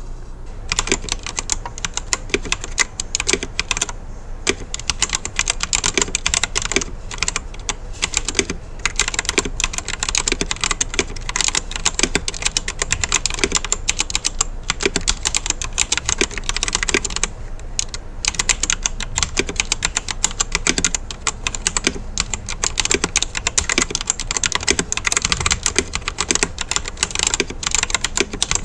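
Fast, continuous typing on the XISOGUU budget mechanical keyboard, its thin OEM-profile keycaps clacking under rapid keystrokes, with a brief lull about two thirds of the way through.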